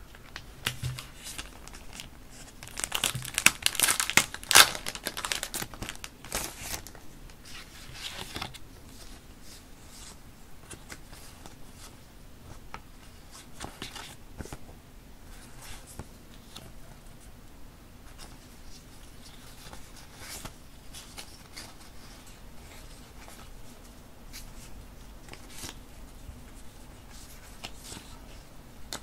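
Clear plastic packaging crinkling and tearing as a pack of deco sticker sheets is opened and emptied, loudest about three to five seconds in. After that come lighter rustles and soft ticks as the paper sticker sheets are shuffled through by hand.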